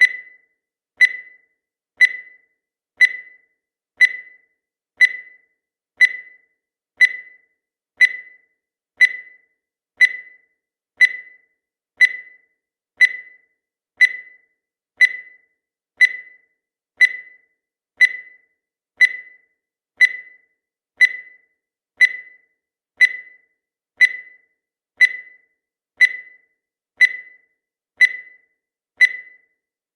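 Countdown timer's sound effect: a short, high beep once every second, each dying away quickly, marking off the seconds.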